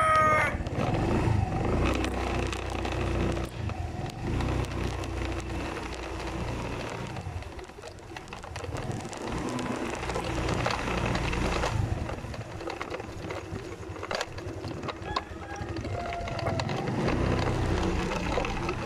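The tail of a rooster's crow in the first half-second, then a vehicle engine running low with road and wind noise as it travels along the street.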